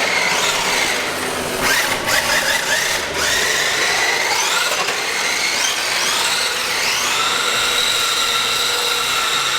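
Electric motors of a cheap 1:10 four-wheel-drive RC drift car whining. The pitch rises in steps several times as the throttle and turbo button push the motors faster, then holds a steady high whine from about seven seconds in.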